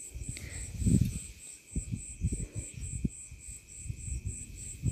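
Soft rustling and bumping of cotton fabric and thread being handled close to the microphone, loudest about a second in. Behind it a cricket chirps steadily in an even pulse, about four a second, over a thin high whine.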